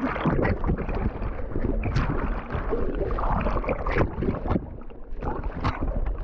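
River water splashing and sloshing close against the microphone as a swimmer moves in it after a bridge jump, with a low rumble of water and handling noise and a few sharper splashes about two, four and five and a half seconds in.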